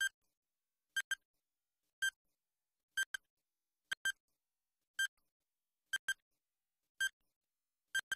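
Quiz countdown timer beeping once a second: short, high electronic pips, some of them doubled into a quick pair.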